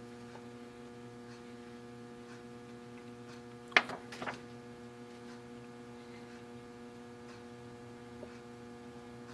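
Steady low electrical mains hum. About four seconds in there is a single sharp click, followed by a fainter tap.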